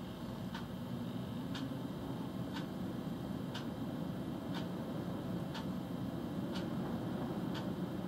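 A car's indicator ticking steadily about once a second inside the cabin, over a steady low engine rumble.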